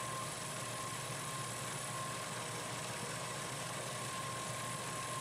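Milling machine running steadily while a very small end mill takes light cuts across a brass screw head, milling the slot. An even running noise carries a steady high whine.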